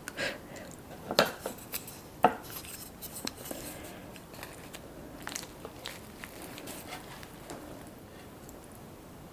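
Cutlery clinking against dishes: a string of sharp clicks and knocks in the first few seconds, the loudest about two seconds in, then sparser taps and soft rustling of food being handled.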